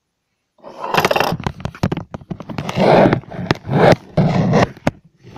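Scraping and rubbing with many sharp clicks and knocks close to the microphone, starting suddenly about half a second in after dead silence.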